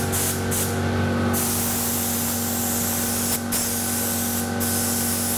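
Gravity-feed spray gun hissing as it sprays the second coat of clear lacquer over a repaired carbon-fibre panel: two short blasts, then longer passes with brief breaks between them, over a steady low hum.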